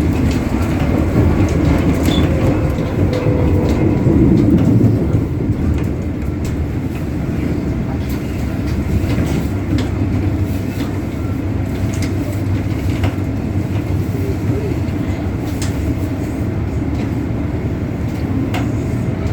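Disneyland Resort Line Metro-Cammell M-train with GEC GTO chopper traction equipment, running between stations: a steady running noise, louder in the first few seconds, with scattered clicks from the wheels on the track.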